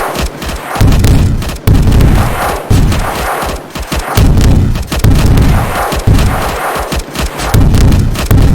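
Battle sound effects: rifle fire and explosions overlapping. Heavy booms land every second or two, with sharp single shots between them.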